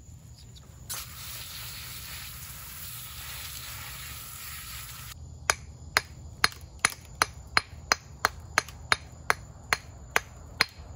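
A hammer tapping repeatedly on a calcite-filled fossil clam, chipping it open to expose the crystals: sharp taps about three a second, starting about five seconds in. Before the taps there is a steady hiss for about four seconds.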